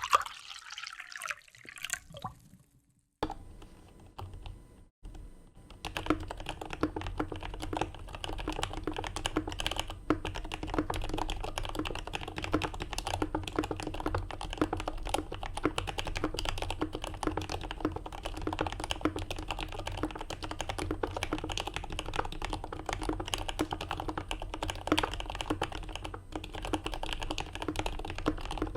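Fast, continuous typing on a CA66 mechanical keyboard with lubed Turquoise Tealios linear switches, an aluminium plate and GMK keycaps. The dense run of keystrokes starts about six seconds in, after a short, quieter stretch.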